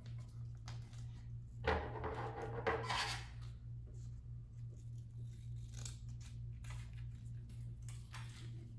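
Small scissors snipping through folded paper: a few short cuts, the loudest about two and three seconds in, with light paper rustling between them.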